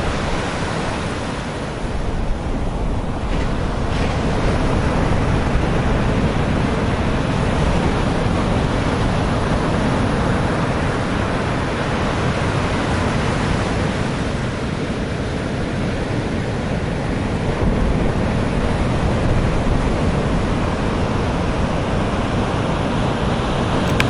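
Rough Mediterranean surf breaking along the shore and against a concrete sea wall: a continuous rush of breaking water that swells now and then as bigger waves come in. Wind buffets the microphone with a low rumble underneath.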